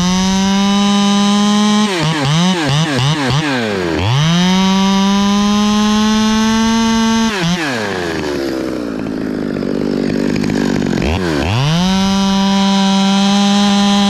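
Stihl chainsaw's two-stroke engine cutting into a dead pine trunk. It is throttled up to a high, held pitch three times, with a few quick throttle blips after the first cut and a spell near idle in the middle.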